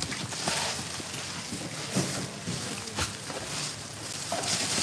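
A plastic bag crinkling and rustling as shrimp are scooped into it with a small plastic basket, with a few light knocks of the plastic basket.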